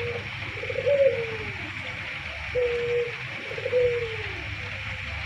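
A dove cooing over and over: low notes in pairs, a level note followed by one that rises slightly and then falls away, about every two and a half seconds, over a steady hiss.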